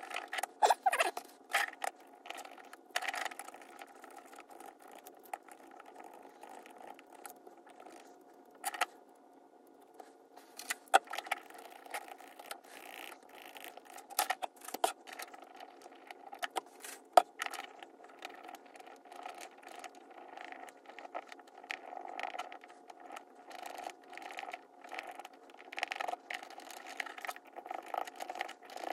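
Small irregular scrapes, taps and clicks of close-up handwork as the gunked-up commutator of an HO-scale model locomotive's motor is swabbed clean with isopropyl alcohol, with a few sharper clicks over a faint steady hum.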